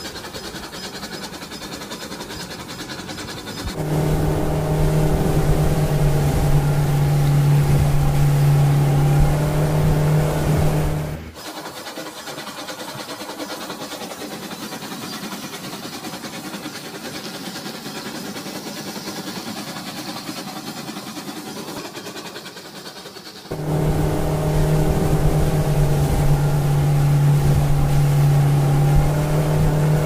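A small electric toy motor runs with a steady buzzing hum in two long stretches, starting and stopping abruptly. Under it lies a constant hiss of shallow running water.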